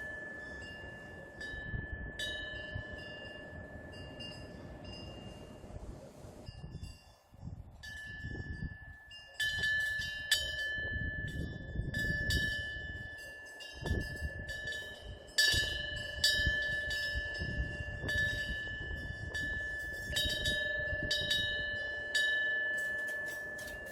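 Korean temple eave wind bell (pungyeong) struck again and again at uneven intervals as the wind swings its clapper, its clear ringing tone carrying on between strikes. A low wind rumble rises and falls underneath.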